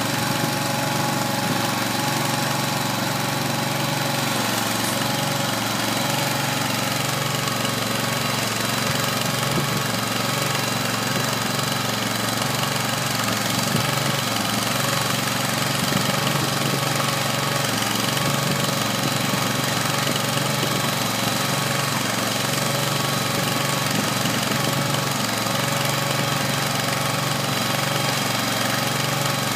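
Kohler 25 hp gasoline engine running steadily at an even speed, driving a small 25-cubic-foot feed mixer as it tumbles hay.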